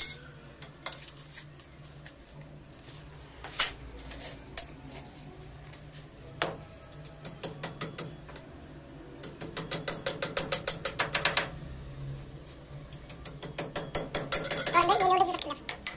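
Hammer tapping at the base of a stainless steel railing post to seat it in its socket in a stair step: a few separate knocks, then fast runs of light taps in the middle. A brief, louder pitched sound comes near the end.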